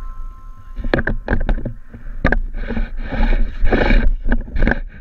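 Wind rumbling on a camera held out on a boat hook, with sharp knocks and scrapes from the pole being handled, and bursts of water rushing past the sailboat's hull near the middle.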